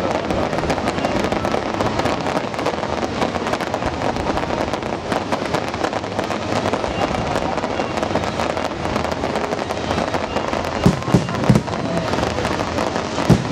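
Fireworks display: a dense, continuous crackle of bursting shells and crackling stars, with a few louder booms about eleven seconds in.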